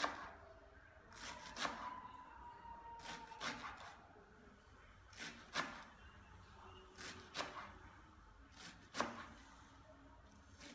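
Kitchen knife chopping garlic chives on a wooden cutting board: about ten short, sharp knocks of the blade hitting the board at uneven intervals, several of them in quick pairs.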